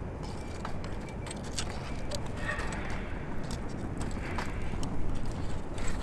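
Wood fire burning down toward embers in a titanium fire pit, giving scattered sharp crackles and pops over a steady low rumble.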